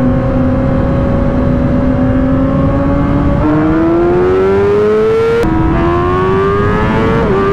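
Sport motorcycle engine accelerating hard through the gears, its note climbing and dropping at upshifts about three and a half and five and a half seconds in, over wind rushing across the microphone.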